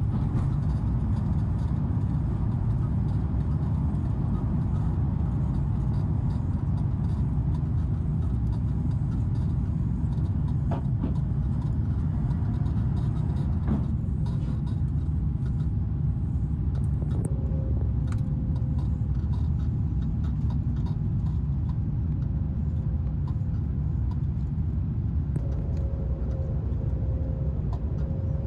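Steady low rumble of airliner cabin noise in an Airbus A350-900, from its Rolls-Royce Trent XWB engines and the airflow, with a couple of faint clicks and a faint steady hum that comes and goes in the second half.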